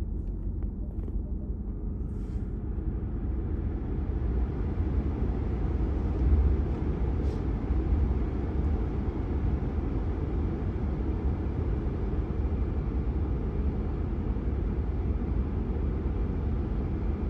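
Cabin noise of a Ram TRX pickup driving: a steady low rumble of engine and road. About two seconds in, a rushing hiss of air from the air-conditioning vents builds up and holds, as the fan is turned up to test whether the vent airflow causes the vibration noise. A few light clicks come near the start.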